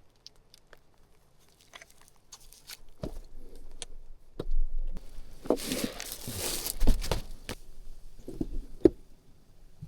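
Scattered light clicks and knocks with a brief rustle about halfway through, as of small objects being handled in a small enclosed space.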